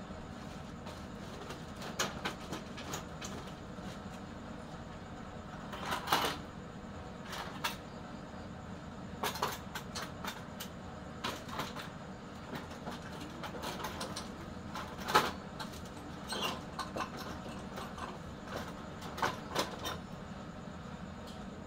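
Computer motherboards clattering and clicking as they are handled, pulled out of a woven plastic sack and dropped onto a pile of other boards, in irregular knocks with a louder clack about six seconds in and another about fifteen seconds in. A steady hum runs underneath.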